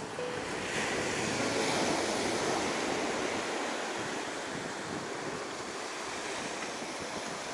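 Sea surf breaking and washing up a pebble beach, a steady rushing wash that swells a little in the first few seconds.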